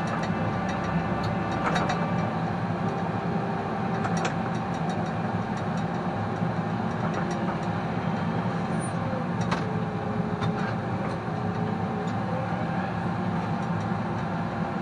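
New Holland T5 tractor's diesel engine running steadily, heard from inside the cab, with scattered short clicks and knocks as the front loader works snow.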